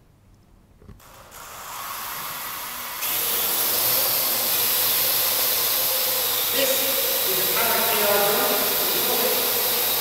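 Parrot AR.Drone quadricopter's four electric motors and propellers spinning up from rest about a second in. The sound rises in steps over the next two seconds as it takes off from the floor, then holds as a loud, steady whir while it hovers.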